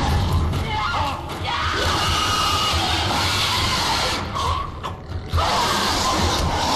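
Horror film soundtrack of a violent attack: a loud, dense mix of screaming and music, dipping briefly about five seconds in before it comes back.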